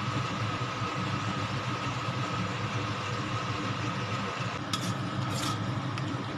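Steady mechanical hum and hiss with a faint high tone from a stovetop where a wok of meat and carrot strips is simmering. Two brief higher sounds come near the end.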